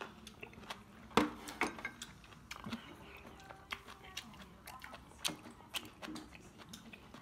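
Close-up eating sounds: chewing, with scattered sharp clicks and taps of chopsticks and a spoon against ceramic bowls and dishes. The sharpest click comes about a second in.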